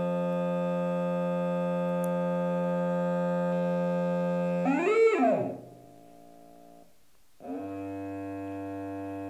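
Small loudspeaker sounding a steady 176 Hz test tone from a tone-generator app, with many overtones, as it vibrates a balloon membrane. About five seconds in the tone breaks into a brief wavering glide and fades. After a short gap, a lower steady tone starts near the end.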